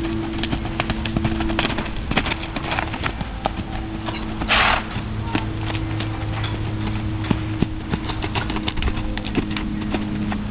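Hoofbeats of a young Quarter Horse–Paint filly trotting and cantering loose on dirt footing, an irregular patter of dull thuds over a steady low hum. A short, loud rush of noise about halfway through.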